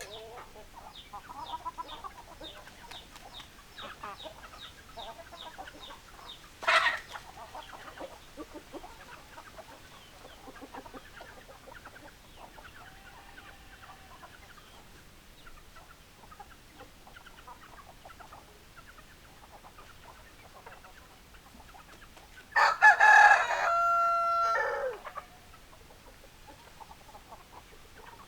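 Hens clucking softly and repeatedly, with one short loud call about seven seconds in. Near the end a rooster crows once, the loudest sound, lasting about two and a half seconds.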